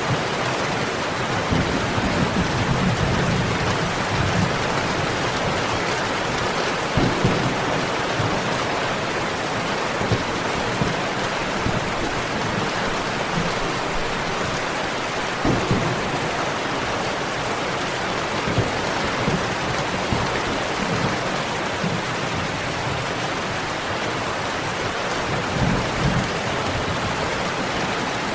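Steady rain falling, with thunder rumbling low several times.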